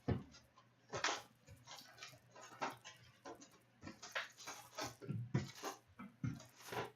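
A sealed box of 2016/17 Fleer Showcase hockey cards being opened and its foil packs handled: irregular rustling, crinkling and light taps.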